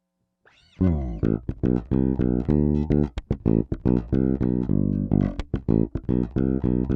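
Peavey T-40 electric bass played fingerstyle: after a brief silence, a fast run of plucked notes starts just under a second in and continues.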